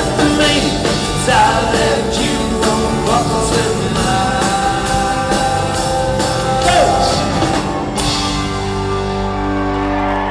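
Country-rock band music with electric guitar lead lines and a drum beat, settling into a held, ringing chord about eight seconds in.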